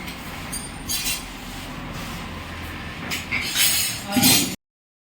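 Metallic clinks and knocks over steady workshop background noise, with a burst of clattering near the end before the sound cuts off abruptly.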